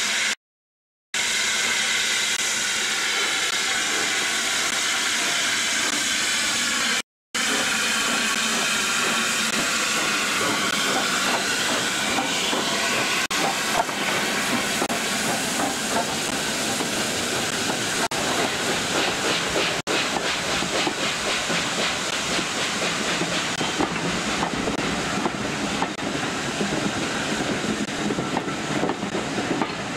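Steam locomotive passing close by with steam hissing, then its coaches rolling past with a rhythmic clatter of wheels on the rails. The sound drops out briefly near the start and again about seven seconds in.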